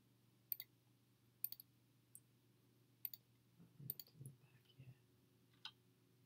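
Computer mouse clicking, about six sharp, quiet clicks, some in quick pairs, with a few soft low bumps about four seconds in.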